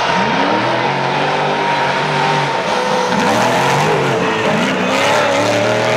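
Drift car's engine revving up and down again and again as it slides sideways, with tyres squealing and skidding on the asphalt.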